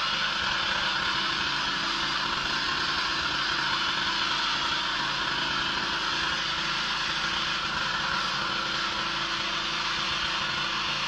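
Pressure washer running steadily: an engine drone with the hiss of the high-pressure spray over it.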